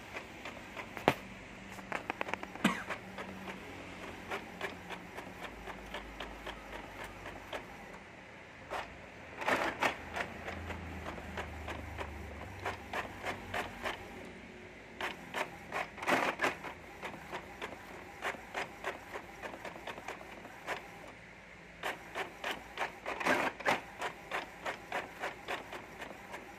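Inkjet printer printing, its print-head carriage shuttling back and forth with a regular clicking about twice a second. Denser, louder bursts of clatter come roughly every six to seven seconds.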